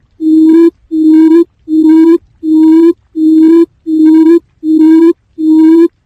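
Quail lure call: a low hooting note repeated at an even pace, about eight times, each note about half a second long with short silent gaps between.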